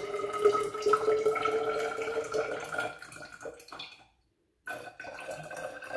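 Water poured from a glass beaker into a tall glass measuring cylinder: a trickling splash with a steady hollow ringing tone from the cylinder's air column. After a brief break about four seconds in, the ringing comes back higher in pitch as the cylinder fills.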